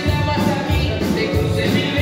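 Upbeat Latin dance music with singing over a strong, pulsing bass line.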